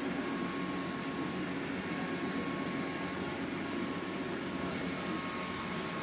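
iCLEBO O5 robot vacuum cleaner running while it cleans: a steady motor and suction-fan hum with a thin constant whine above it.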